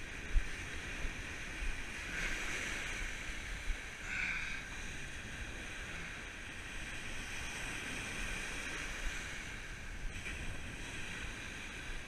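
Ocean surf breaking and washing up over the sand in a steady hiss that swells now and then, with wind rumbling on the microphone. A single brief knock about half a second in.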